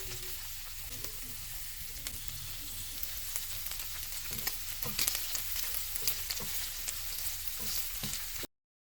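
Beef and noodles sizzling as they stir-fry in a pan, a steady hiss with scattered clicks and scrapes of a stirring utensil. The sound cuts off abruptly near the end.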